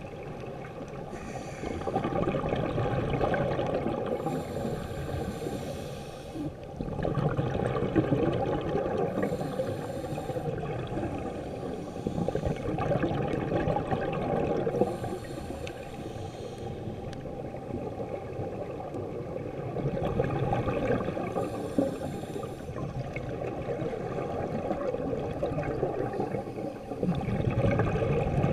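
Scuba diver breathing through a regulator underwater. Each inhale is a short hiss, and each exhale is a rush of gurgling bubbles, a breath every few seconds, heard muffled through an underwater camera housing.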